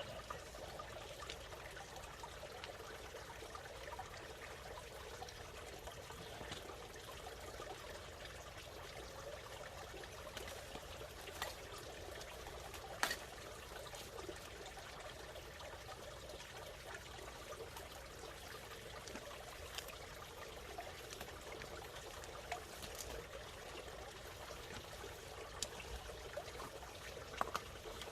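Water bubbling and trickling steadily, with a few sharp clicks or taps scattered through it.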